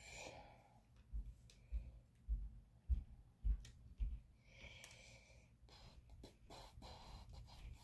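Six low, dull thumps about half a second apart, then a short hiss of breath and faint rustling of a paper receipt being handled.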